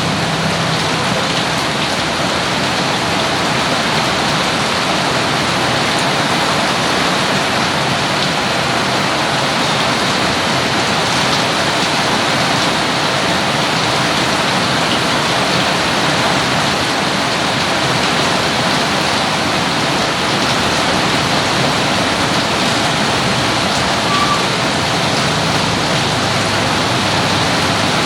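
Steady, heavy rain pouring down, an even dense hiss with no let-up.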